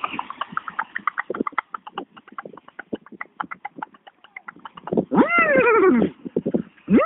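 A man imitating a horse with his mouth: a fast run of tongue clicks like galloping hooves for about five seconds, then a whinny that rises and falls with a wobble, and a second whinny starting near the end.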